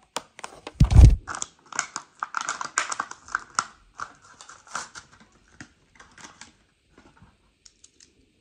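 Plastic blister pack of a Matchbox toy car crackling and clicking as it is pried open from its card backing, with one loud low thump about a second in. The clicks grow sparse after about five seconds.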